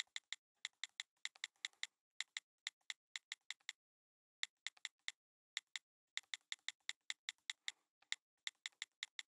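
Computer keyboard typing sound effect: light key clicks in quick, irregular runs, with short breaks about two seconds and four seconds in.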